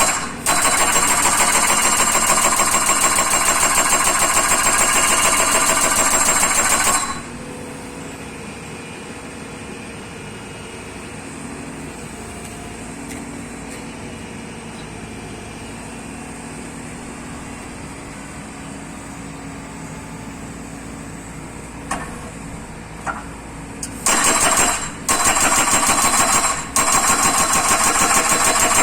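Hydraulic breaker hammer on a Hyundai Robex 140W-7 wheeled excavator pounding in rapid, continuous strikes for about seven seconds. Then comes a long stretch of the excavator's engine idling with a couple of light clicks. The breaker starts hammering again, breaking off briefly twice.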